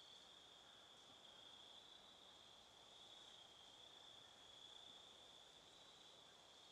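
Near silence with a faint, steady high-pitched trill of crickets in the woods.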